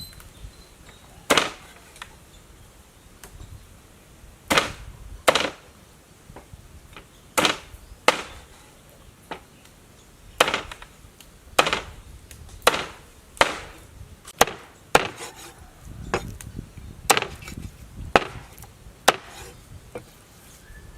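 About fifteen sharp chopping blows at an uneven pace, often in quick pairs, like a blade striking wood or a board.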